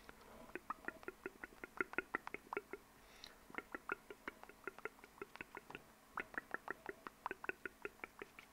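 Close-miked mouth sounds: quick wet mouth clicks, about four or five a second, in three runs with short breaks about three and six seconds in.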